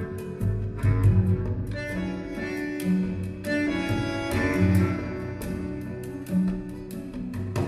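Instrumental music with a pulsing bass line, held chords and steady percussive ticks, played back through a Devialet Phantom wireless speaker. The sound changes abruptly right at the end.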